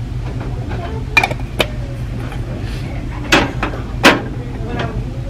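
Glass candle jars being handled, picked up and set back down, giving about six sharp clinks and knocks, the loudest about four seconds in, over a steady low hum.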